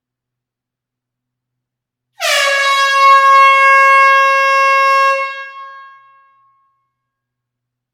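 A single loud air horn blast starting about two seconds in. Its pitch dips briefly at the onset, then holds steady for about three seconds before trailing off in a hall's reverberation.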